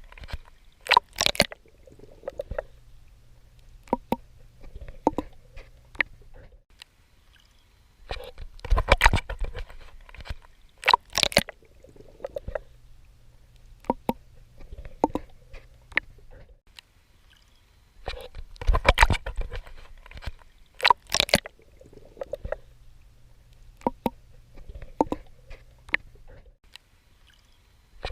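Swimming strokes splashing in water, in a repeating cycle: a group of loud splashes about every ten seconds, with quieter drips and a low steady rumble between them.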